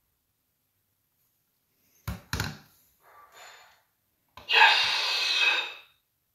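Two sharp knocks as the plastic base of a talking Napoleon Dynamite figure is set down on a wooden table. A click follows as its red base button is pressed, and the figure's small built-in speaker then plays a loud, breathy, hissy voice clip for about a second and a half.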